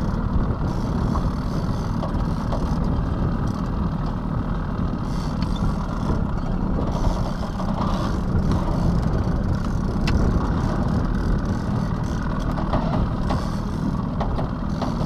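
Boat's outboard motor running steadily at low trolling speed, with wind buffeting the microphone.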